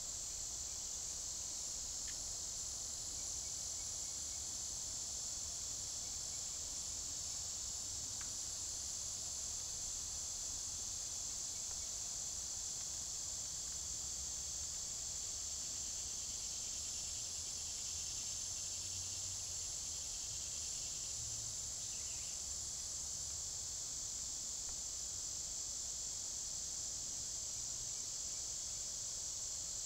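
Steady, high-pitched chorus of insects in summer woodland, running on without a break.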